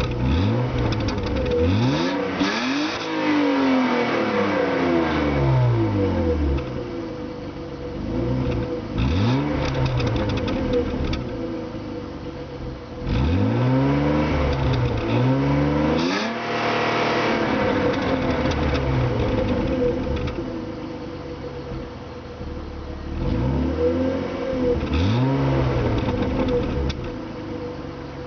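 BMW E36 320i's stock M52B20 2.0-litre inline-six, hot, revved up several times, its pitch climbing and falling back in repeated sweeps with steadier running in between.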